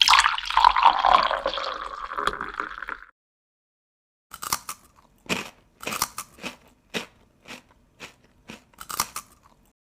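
Water running for about three seconds, then a dozen or so sharp crunching clicks at uneven intervals.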